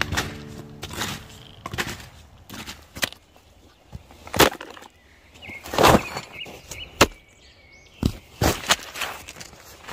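Irregular crunches, knocks and clatters of snowshoes and trekking poles being handled on snow, a dozen or so separate sharp sounds; background music fades out in the first moment.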